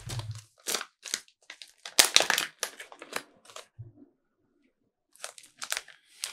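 Clear plastic bag around a wax melt pack crinkling as it is handled and held up to the nose, in irregular rustles, the loudest about two seconds in.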